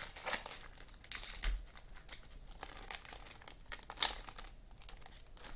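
Trading card pack wrappers crinkling and rustling as packs are handled and opened, in irregular sharp crackles, with a louder rustle about a second in and another about four seconds in.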